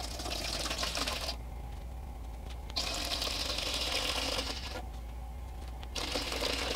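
3% hydrogen peroxide poured from a bottle into a stainless steel stock pot, a splashing stream that stops briefly about a second and a half in and again about five seconds in.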